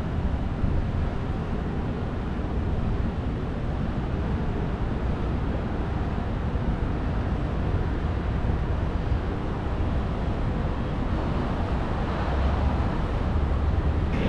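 Wind buffeting the microphone of a rider on a moving bicycle: a steady low rumble with a hiss above it, getting a little louder near the end.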